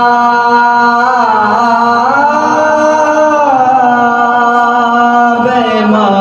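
A man singing an Urdu manqabat, a devotional praise poem, solo and unaccompanied into a microphone, holding long notes that bend slowly up and down in pitch.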